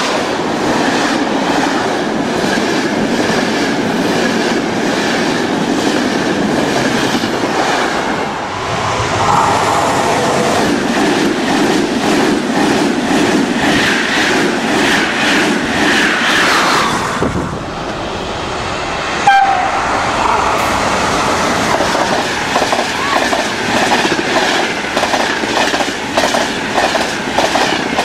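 Italian passenger trains of coaches passing at speed close by, one after another: a loud steady rush of the cars. Wheels clatter rhythmically over the rail joints, strongest in the last third, and a falling tone passes a little past halfway.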